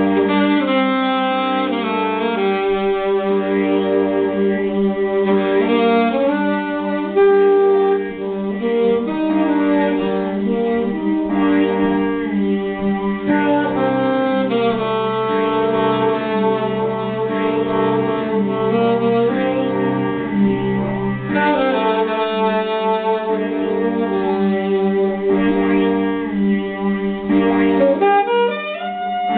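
Live improvised music: a saxophone plays long held and wandering notes over a steady low drone, with other sustained tones layered around it.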